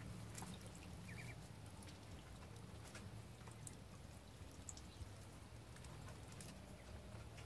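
Faint scattered pecking and dabbling of Muscovy ducks feeding, with one short high peep about a second in.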